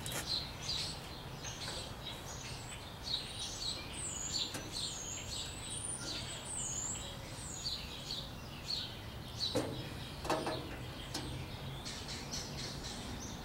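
Small birds chirping and twittering, many quick short calls throughout, over a steady low hum. A couple of light knocks come a little after halfway.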